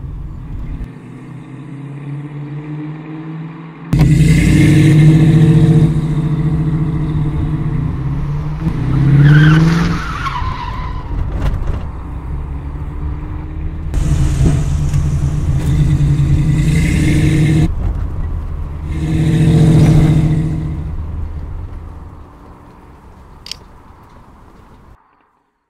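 Car engine running hard, with a sudden rise in revs and a high tyre squeal that slides down in pitch about nine to ten seconds in, and another loud surge near twenty seconds. The engine fades away near the end and then cuts off.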